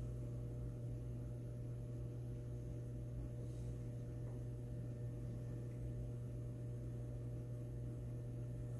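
Steady low hum with a faint hiss underneath: room tone, with no other sound.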